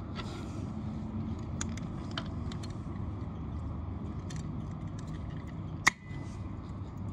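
Scattered metallic clicks and taps of a wrench on the motorcycle's oil filter as it is worked loose, with one sharper click near six seconds in; the filter is stuck. A steady low rumble runs underneath.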